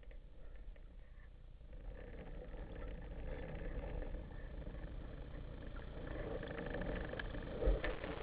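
Underwater sound as heard by a camera in its waterproof housing: a steady low rumble of water with scattered faint clicks and crackles, growing a little louder from about two seconds in, and a dull thump shortly before the end.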